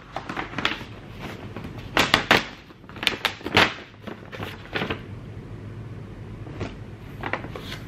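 Brown paper takeaway bag rustling as it is opened and rummaged through, in several short bursts, the loudest about two and three and a half seconds in.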